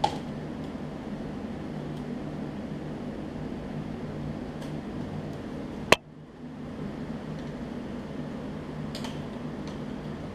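Steady low mechanical hum, with a sharp click about six seconds in and a few faint clicks and taps from hands working a pull rope into a mower's plastic recoil starter pulley.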